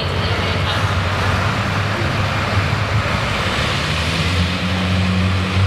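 Vintage pulling tractor's engine running steadily at low speed.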